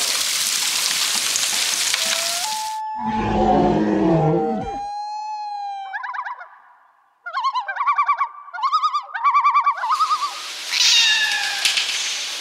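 Heavy hail and rain hissing and rattling steadily for about three seconds, then cut off abruptly. A series of short, wavering, high-pitched cries follows.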